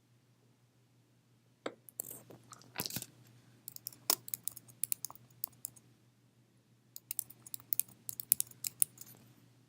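Irregular crisp crunching and sharp clicks in two runs of several seconds each, with a short pause between them.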